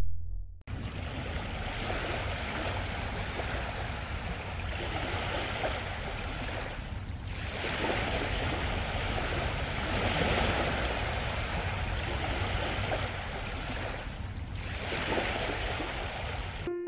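Steady rushing water, like waves surging, that briefly drops away twice and then cuts off suddenly near the end.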